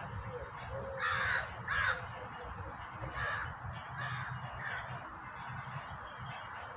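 Harsh, cawing bird calls: two loud calls about a second in, then three fainter ones spaced roughly half a second to a second apart.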